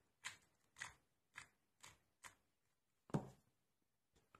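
Faint clicking of a 2x2 Rubik's cube being turned through an algorithm, a series of separate turns about half a second apart, with one sharper click about three seconds in.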